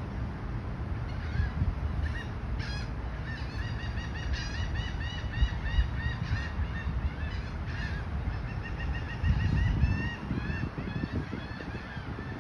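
Birds calling in a rapid series of short, arched calls, several a second, over a steady low rumble.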